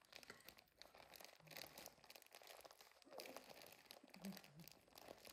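Faint, irregular crinkling of a plastic bag being handled.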